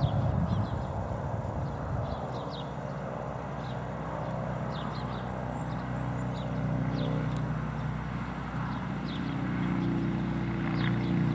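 Steady low drone of a distant engine, growing louder near the end.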